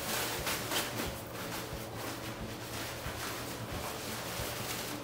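Nylon grow-tent cover rustling in irregular scrapes and crinkles as it is pulled into place over a wire shelving frame.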